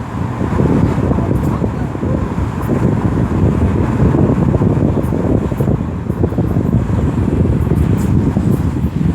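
Road and wind noise of a 2008 BMW X3 driving with the windows down, with a few faint, brief high hisses as the front suspension goes over bumps. The owner suspects the hiss points to a problem in the driver's side front suspension.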